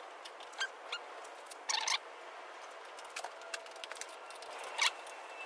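Scattered small clicks and metallic ticks of hand work on a turbocharger's wastegate, the parts and a small tool being fitted back on, with a short cluster about two seconds in and a sharper click near the end, over a faint hiss.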